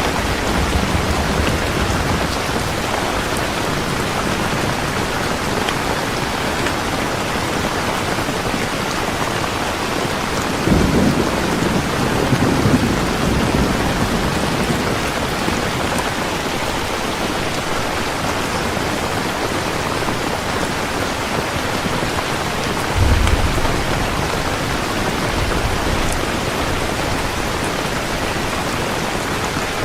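Steady heavy rain falling, with a low rumble of thunder about a third of the way in and a shorter one about three quarters through.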